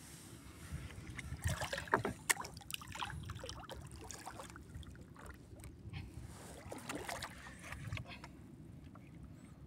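Faint water lapping and trickling against the hull of a small wooden outrigger boat, with scattered light knocks and clicks, most of them between about one and a half and three seconds in.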